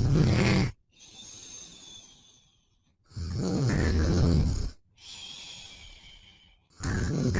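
A man snoring in a steady cycle about every three and a half seconds: a loud, low snore followed by a quieter, hissing breath. One snore ends just under a second in, a full one falls in the middle, and another begins near the end.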